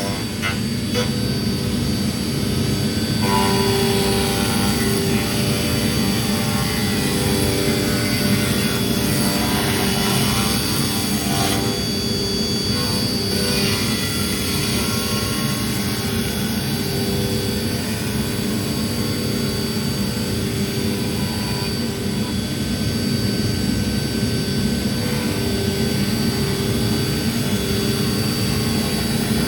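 A custom-built CNC router's 15 HP spindle runs steadily while surfacing a slab. It makes a continuous machine hum with a dense cutting noise, and one tone in it pulses regularly.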